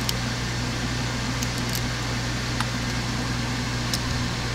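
Steady low machine hum, like a fan or air-conditioning unit, with a few faint light clicks from hands working wire terminals.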